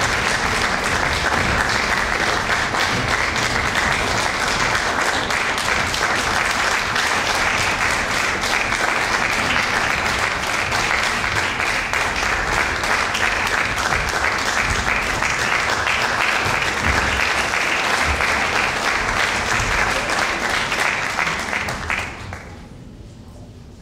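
Audience applauding steadily, with dense clapping that dies away sharply about 22 seconds in.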